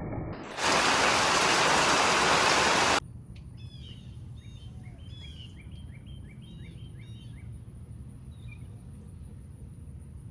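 Heavy rain making a loud, even hiss that starts about half a second in and cuts off suddenly about three seconds in. Then, over a quieter background with a faint steady high tone, a bird calls in a run of short repeated chirps, about two a second, thinning out towards the end.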